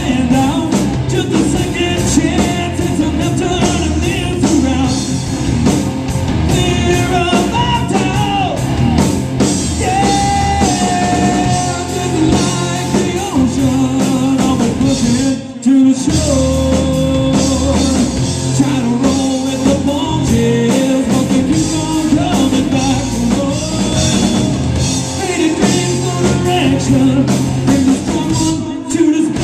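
Live hard rock band playing: a man singing over electric guitar, bass guitar and drum kit. The whole band stops for a moment about halfway through, then crashes back in.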